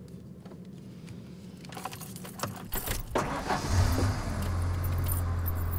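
Keys jangle and click in the ignition, then the pickup truck's engine is cranked and catches about three seconds in, settling into a steady idle.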